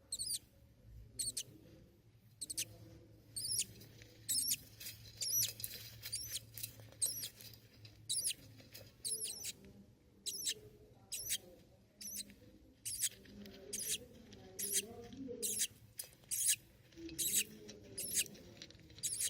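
Budgerigar chicks giving short, high-pitched squeaky cheeps, over and over, about one or two a second.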